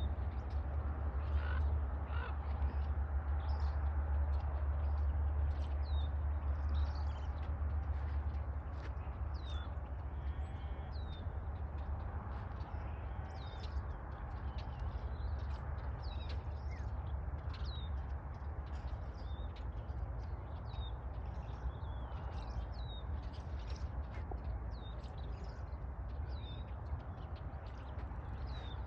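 A large flock of birds calling over and over, with many short, overlapping high calls that drop in pitch. Under them runs a steady low rumble.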